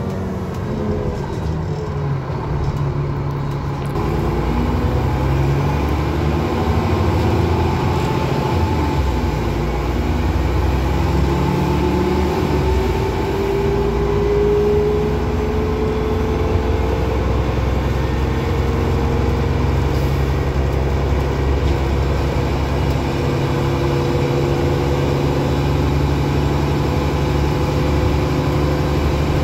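Transbus Trident double-decker bus's diesel engine and driveline heard from inside the passenger saloon, working hard under way. It gets louder about four seconds in, a whine rises in pitch a few seconds later as the bus accelerates, and then it runs steadily.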